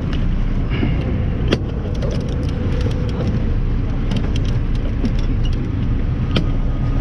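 Charter fishing boat's engine running with a steady low rumble, mixed with wind and water noise, and a couple of sharp clicks.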